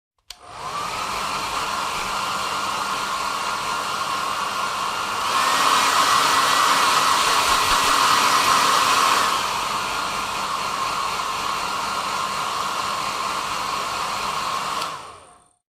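Hair dryer switched on, its motor whine rising as it spins up, then blowing steadily on the low setting. About five seconds in it steps up to a louder, higher-pitched high setting for about four seconds, drops back to low, and near the end is switched off and winds down.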